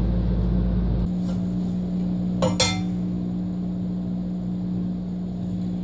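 Steady low hum with two quick, light clicks of wood knocking on wood about two and a half seconds in, as a pine bench leg and stretcher strip are handled for marking.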